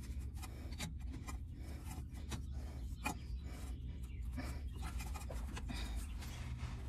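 Oil filter wrench scraping and rubbing against a spin-on oil filter as it is gripped, shifted and worked to loosen the filter by hand, in many short, irregular scrapes and clicks over a low steady hum.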